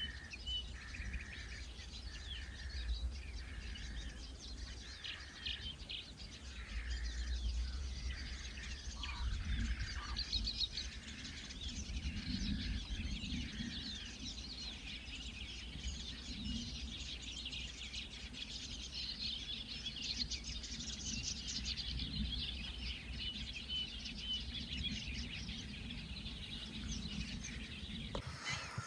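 Birdsong outdoors: many small birds chirping and twittering, with one bird repeating a single short mid-pitched note about once a second through the first half, over a steady low rumble.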